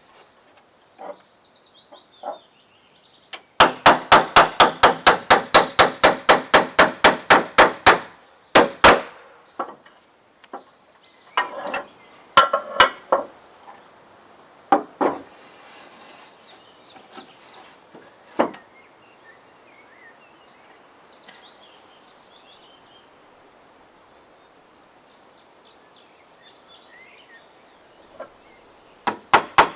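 Hammer striking wood: a fast, even run of about two dozen blows over some four seconds, then scattered knocks and taps.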